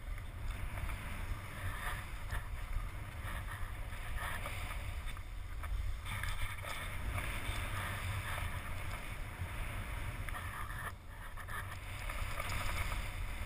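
Skis hissing through snow in uneven surges during a downhill run, over a steady low rumble of wind buffeting the camera's microphone.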